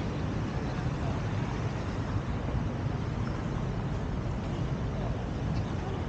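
Steady city traffic noise: a low, even rumble of vehicles on the surrounding streets, with no single distinct event.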